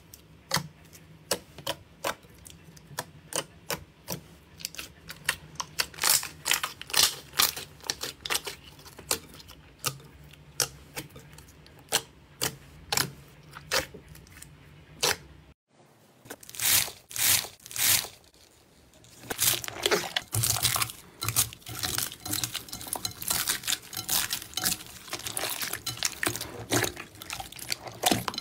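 Hands squeezing and poking thick slime in a glass bowl, with sharp wet pops and clicks as air pockets burst. After a brief break about halfway through, the popping and crackling comes faster and denser.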